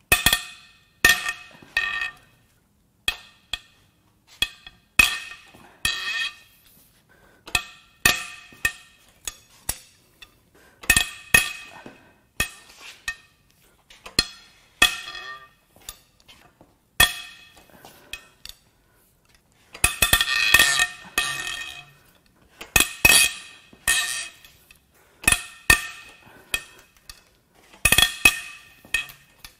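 Toyota 2AR-FE cylinder head bolts being cracked loose with a long breaker bar and socket: a string of sharp metallic snaps and clinks, each ringing briefly, with a denser burst about two-thirds of the way through.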